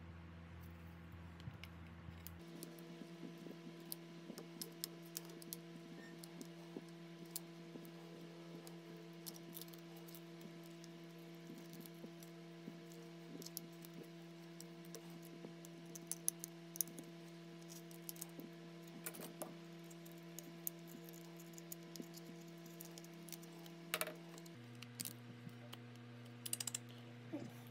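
Quick small clicks and taps of hand tools on a phone's parts, scattered irregularly over soft background music of long held chords that change a couple of times.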